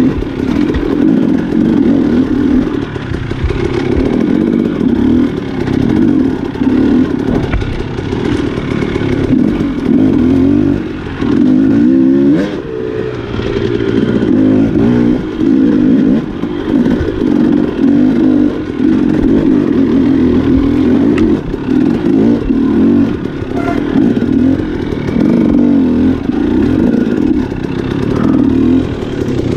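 Enduro dirt bike engine being ridden hard, its revs rising and falling constantly with throttle and gear changes, and a quick rev about twelve seconds in.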